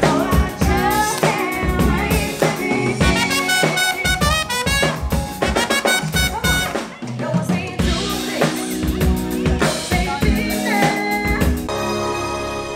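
Live band playing upbeat music: a drum kit with snare and rimshot hits drives the beat under electric guitar, trumpet and singing. Just before the end the music changes to a different, steadier piece.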